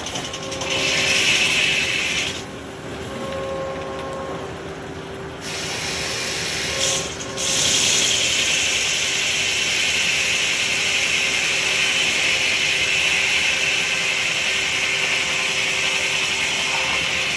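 A power tool cutting through wood with a steady, rasping mechanical noise. It drops quieter from about two to five seconds in, then runs steady and louder from about eight seconds on.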